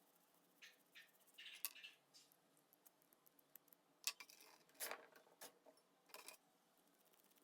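A scattered series of faint clicks and short scrapes, irregular and with no steady rhythm, typical of small hand-worked workshop noises.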